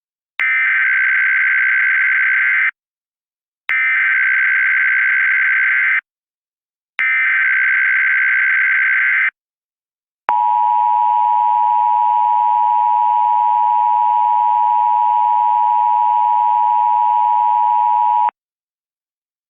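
Emergency Alert System SAME header: three identical bursts of digital data tones, each about two seconds long, with a gap of about a second between them. Then comes the EAS two-tone attention signal, held steady for about eight seconds before it cuts off suddenly. Together they mark the start of an Emergency Action Notification alert.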